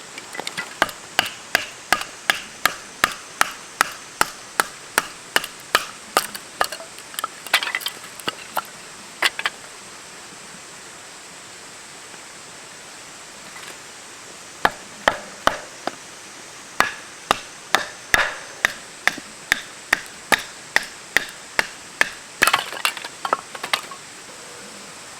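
A rapid run of sharp blows on wood, about two a second. They stop for about five seconds midway, then start again.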